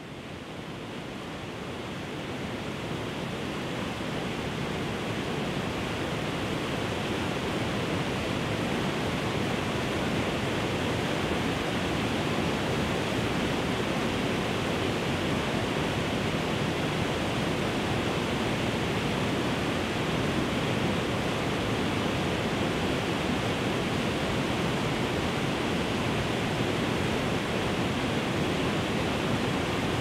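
Waterfall pouring into a pool, a steady even rush of water that fades in over the first few seconds.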